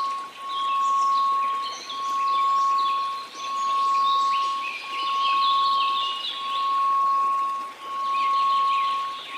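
A steady 1098 Hz sine tone mixed with white noise, the level swelling and dipping about every one and a half seconds. High chirping like birdsong runs through the background.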